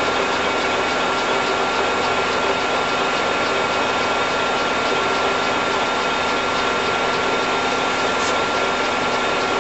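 Clausing Colchester 21-inch gap-bed lathe running steadily under power, its 12.5 hp three-phase motor and geared headstock giving an even hum with a constant high whine.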